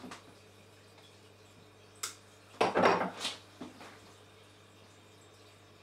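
Metal hand tools clinking: one sharp click about two seconds in, then a short clatter of knocks just after.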